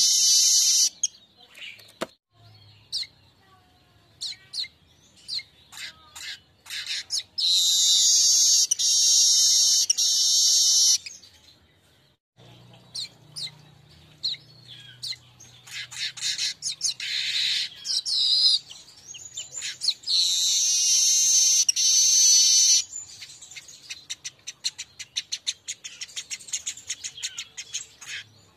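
Streaked weaver (Manyar kembang) song: long high buzzy trills of two to three seconds, three times, separated by short sharp chips, and near the end a fast string of short ticking notes.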